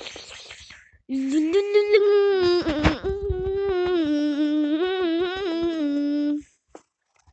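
A voice humming one long, wavering note for about five seconds, starting about a second in and stopping abruptly.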